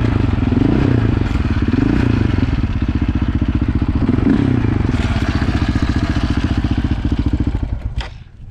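Single-cylinder sport quad engine running under throttle, its pitch rising and falling as it is revved and let off. Near the end it drops away quickly.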